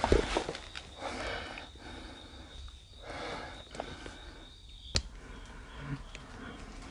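Footsteps and rustling as someone moves over a debris-strewn floor, loudest at the start and softer after, with a single sharp click about five seconds in.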